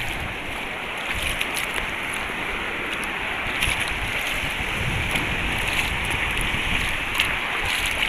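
Shallow seawater sloshing and lapping in small waves, with a few small splashes and wind gusting on the microphone.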